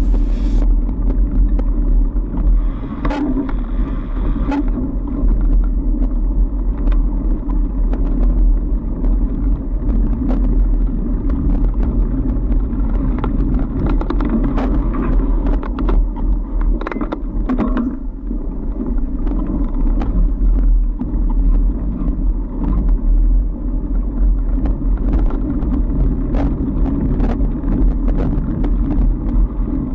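A fat bike rolling along a packed-snow trail, heard through a camera mounted on the bike: a loud, steady low rumble with frequent small clicks and knocks from the bike.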